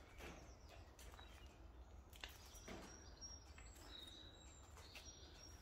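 Near silence with a few faint, short high bird chirps and some soft clicks.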